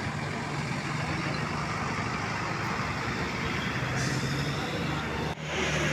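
Large tour bus's diesel engine running steadily, with a broad rumble of traffic noise. The sound briefly cuts out about five seconds in, then resumes a little louder.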